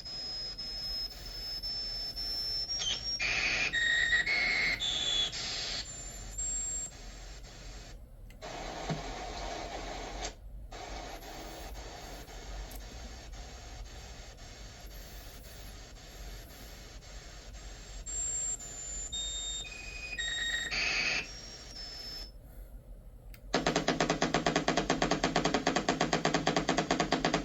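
Electronic whistles, beeps and hiss picked up by a voice recorder's amplified microphone. A thin high tone slowly rises, short stepped tones come and go, and the sound cuts out briefly a few times. Near the end a much louder fast, evenly pulsing buzz sets in.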